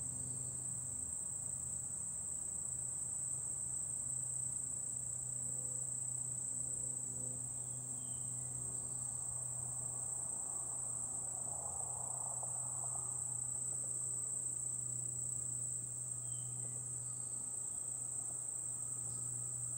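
Insects calling in a steady, high-pitched, unbroken chorus.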